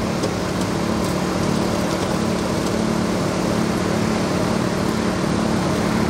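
A small engine running steadily at a constant drone. It is the power unit driving the hydraulic rescue tools.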